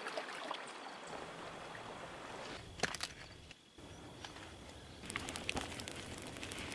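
Quiet outdoor field sound: a steady hiss with scattered light clicks and rustles as a woven crawdad trap is handled at a creek and someone moves through brush and prickly pear.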